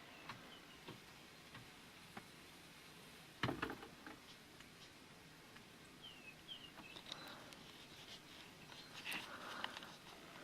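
Faint, scattered light taps and scratches, with a louder clatter about three and a half seconds in, and a few short bird chirps a little after six seconds.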